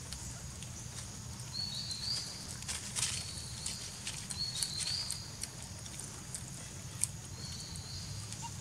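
Outdoor forest ambience: a bird's short high chirping call repeats about every three seconds over a low steady rumble, with scattered small clicks and one sharper click near the end.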